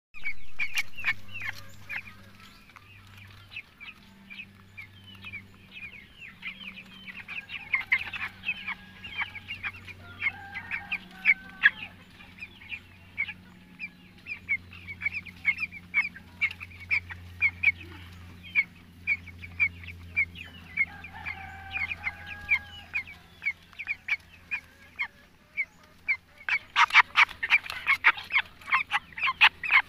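A flock of young white broiler chickens peeping and chirping continually, in short high calls, with a denser, louder run of peeps near the end. A faint low hum runs underneath.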